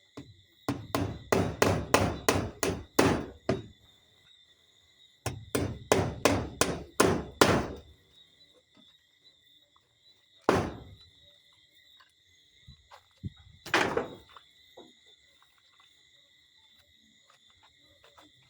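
Hammer driving nails: two runs of about seven or eight quick blows each, a short pause between them, then two single blows later on.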